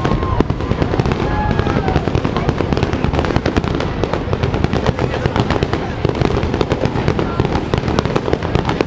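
Aerial fireworks bursting overhead, a rapid unbroken string of bangs and crackles from many shells going off in quick succession.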